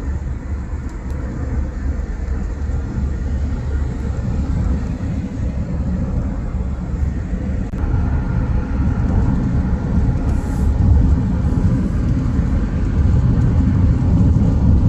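Car driving on the road: a steady low rumble of engine and tyre noise, growing a little louder in the second half.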